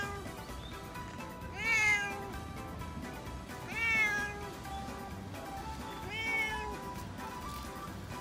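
Ginger tabby cat meowing three times, about two seconds apart, each meow rising then falling in pitch, over background music.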